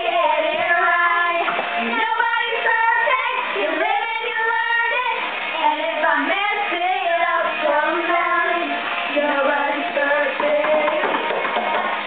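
Young girls singing a pop song over backing music.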